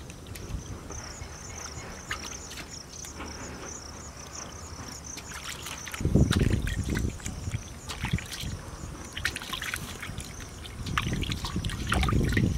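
Water sloshing and trickling in a steel bowl as raw goat legs are washed and rubbed by hand, with louder splashy handling about halfway through and again near the end.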